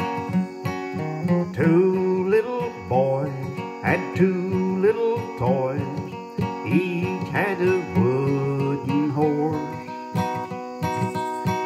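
Acoustic guitar strummed, with a man singing a slow melody over it in short phrases.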